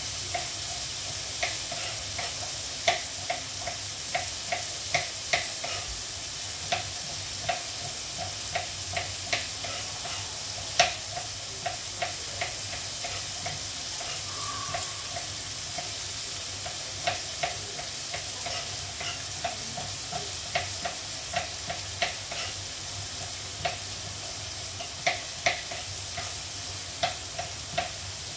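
Knife chopping green beans on a cutting board in uneven taps, about one or two a second, over the steady sizzle of carrots frying in oil in a wok.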